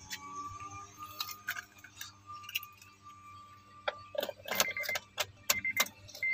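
Car keys jangling and clicking as the Honda Mobilio's key is put into the ignition and turned on. About four and a half seconds in, the car's dashboard warning chime starts beeping repeatedly at one high pitch.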